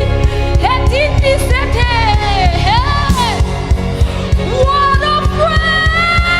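Gospel worship music: a high singing voice holds long, gliding lines without clear words over sustained keyboard chords and a steady drum beat.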